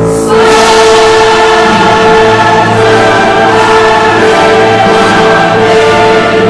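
Soundtrack music of held, sustained chords with choir-like singing voices, swelling back in just after the start.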